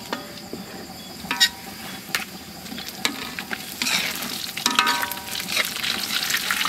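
Minced garlic sizzling in hot oil in a metal wok, stirred and scraped with a wire-mesh strainer that clinks against the pan a few times. The frying gets louder about halfway through.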